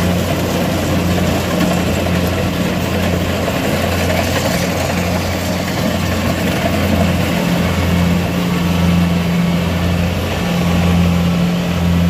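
Rice combine harvester's diesel engine running steadily: a loud low drone with a broad mechanical rush over it.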